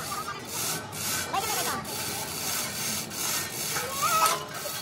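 Repeated scraping or rasping strokes, about two a second, like a hand saw or file working, with voices in the background.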